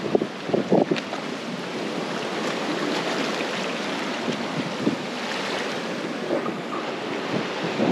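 Ocean surf washing against the lava-rock shore, a steady rushing noise, with wind on the microphone. A few short knocks in the first second.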